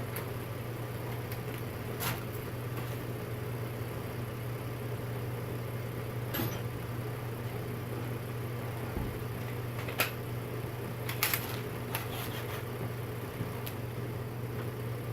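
A few isolated sharp metallic clicks and clinks of hand tools on bolts, over a steady low hum.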